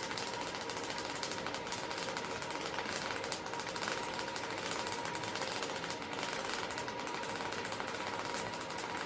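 Kinora viewer being hand-cranked, its reel of picture cards flicking past in a steady, rapid clatter of clicks.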